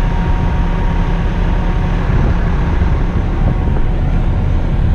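Heavy diesel engines running steadily as a dump truck tips asphalt into an asphalt paver, a loud, even low rumble.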